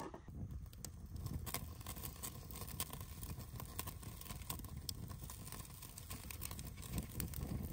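Small wood fire crackling, with scattered sharp pops, over a steady low rumble.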